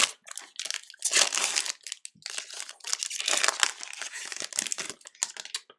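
Foil wrapper of a Panini Select basketball card pack crinkling and tearing as gloved hands rip it open and peel it off the cards, in a run of irregular crackly bursts.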